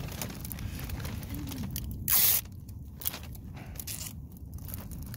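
Newspaper crinkling and rustling as hands gather and handle the taped paper top of a newspaper hot air balloon, with one loud, brief crumple about two seconds in. A steady low rumble sits underneath.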